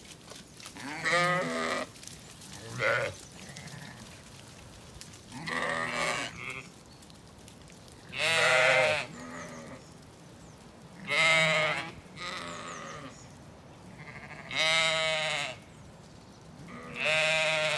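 Zwartbles sheep bleating: about seven wavering calls, one every two to three seconds.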